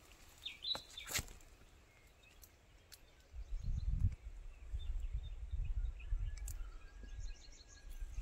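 Rural outdoor ambience with faint bird chirps, the clearest just under a second in. From about three seconds in, a low rumble on the microphone becomes the loudest sound.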